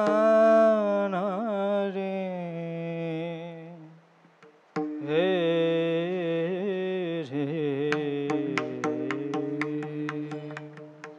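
A voice sings long, wavering held notes of a Marathi Warkari bhajan, breaking off briefly about four seconds in before starting again. From about seven seconds in, small brass hand cymbals (taal) start clicking a beat that quickens toward the end.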